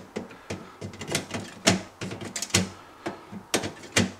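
A string of irregular sharp metallic clicks from snips gripping and twisting the aluminium lugs on a fridge evaporator that hold the defrost heater, the jaws knocking against the lugs and fins.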